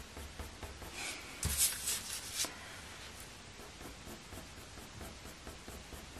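Faber-Castell Polychromos coloured pencil scratching in short strokes on hot-press watercolour paper. A louder cluster of strokes comes between about one and two and a half seconds in, then fainter strokes.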